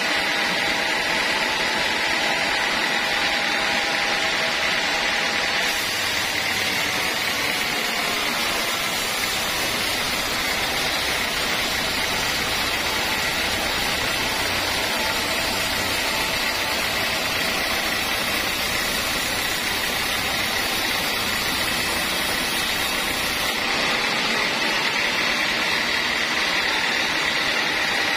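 Band sawmill blade running through a timber plank: a steady high whine over constant rushing noise. A lower rumble joins about six seconds in and drops away a few seconds before the end.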